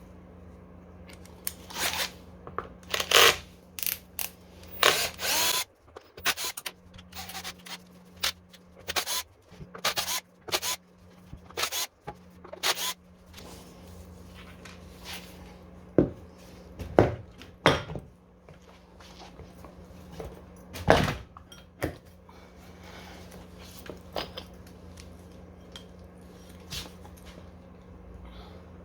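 Tools and metal scooter parts being handled during a tyre change: a busy run of clicks, knocks and short scraping bursts in the first half, then a few single sharp knocks. A steady low hum runs underneath.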